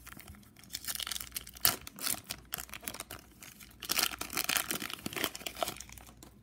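Foil trading-card pack wrapper crinkling as cards are handled, in two spells of rustling, the first starting about a second in and the second about four seconds in.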